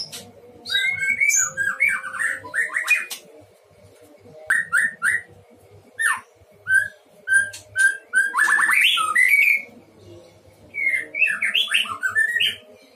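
White-rumped shama (murai batu) singing vigorously in repeated bursts of varied whistled notes that slide up and down, with short pauses between phrases; the loudest phrase, a quick run of notes, comes a little past the middle.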